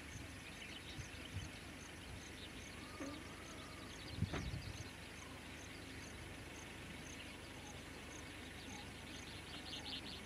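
Quiet wild outdoor ambience: a faint steady hiss with a soft high chirp repeating at an even pace and a few faint bird calls, and a single short knock about four seconds in.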